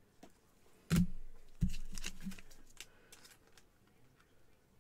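Trading cards and their plastic holders being handled on a table: two dull knocks about half a second apart as they are set down, with light clicks and rustles.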